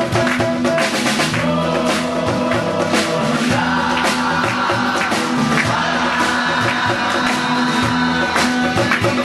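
A live band playing a song on drum kit and guitars, with voices singing from about halfway through.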